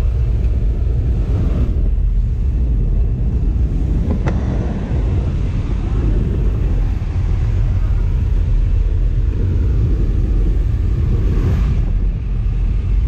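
Steady, loud rush of wind and aircraft engine noise inside a jump plane's cabin with the jump door open, with a brief sharp click about four seconds in.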